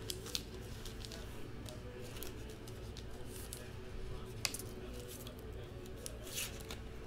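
Faint scattered clicks and rustles of small objects being handled, with a sharper click about four and a half seconds in, over a low steady hum.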